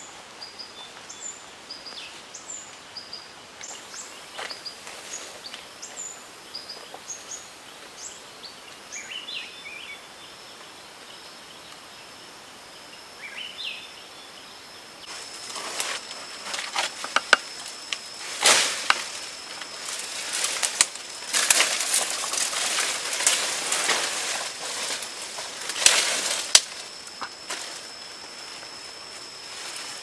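Small birds chirping in short notes for the first half. Then, about halfway through, leafy branches begin rustling and cracking loudly as a man climbs and moves about in a tree, over a steady high whine.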